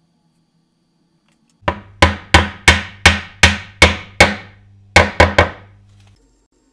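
Hammer knocking a wooden stool leg down into its mortise in the rail, seating the glued joint. About eight sharp, even knocks come first, then after a short pause three quicker ones.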